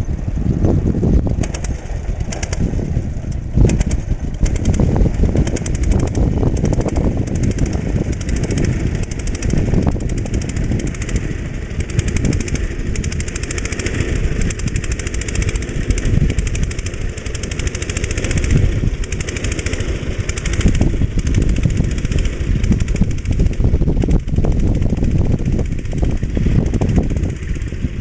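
Trusty walking tractor's 5.5 hp JAP 5 single-cylinder petrol engine running steadily under ploughing load, its firing heard as a rapid, even beat.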